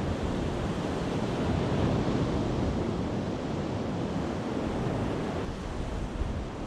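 Steady rush of wind buffeting the microphone, heaviest in the low rumble, with no distinct events.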